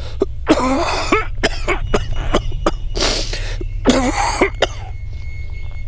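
A person coughing hard, several coughs in a row over about four seconds, with a noisy breath drawn in about halfway through: a sick cough from a cold or flu.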